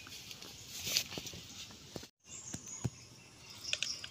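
Faint, scattered clicks and small taps of a knife cutting a lemon held in the hand, then the lemon being squeezed over a plastic cup near the end.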